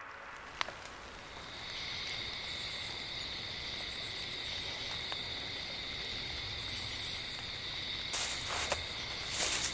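Crickets chirring in a steady high trill that comes in about one and a half seconds in, with a fainter pulsing trill above it. A sharp click about half a second in, and two short bursts of noise near the end.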